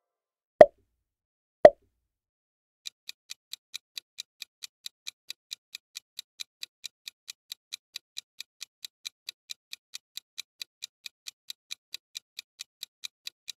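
Two short pop sound effects about a second apart, then a quiz countdown timer's clock-like ticking sound effect, evenly at about four ticks a second for roughly ten seconds.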